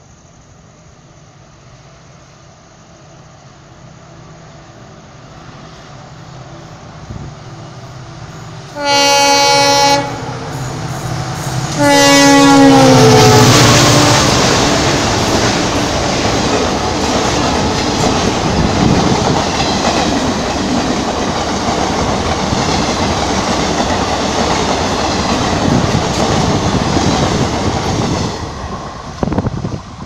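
An EMD WDP-4 diesel locomotive approaching, its rumble growing, then sounding its original EMD horn twice: a blast of about a second, then a longer one about three seconds later that drops in pitch as the locomotive passes. The passenger coaches then run by with a loud, steady clickety-clack of wheels on the rails, which falls away near the end.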